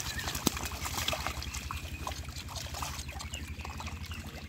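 Hands and thrashing catfish splashing and sloshing in shallow muddy water, a run of many small, irregular splashes and drips.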